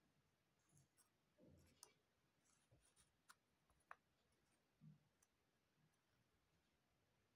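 Faint, scattered clicks and soft rustles of cardboard jigsaw puzzle pieces being picked up, slid and pressed into place on a puzzle mat.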